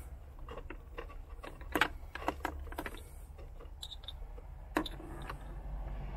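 Small plastic wiring-harness connectors clicking and rattling as they are handled and swapped. It is a scatter of light clicks, with a louder click a little under two seconds in and another near five seconds.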